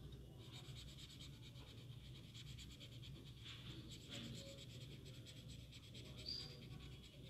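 Faint scratching of a felt-tip sketch pen colouring in on paper, in quick back-and-forth strokes, over a low steady hum.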